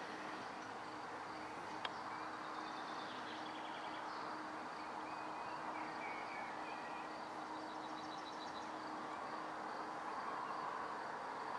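Outdoor ambience of a steady distant hum and a faint low drone, with scattered bird chirps and a short trill of quick repeated notes. There is a single sharp click about two seconds in.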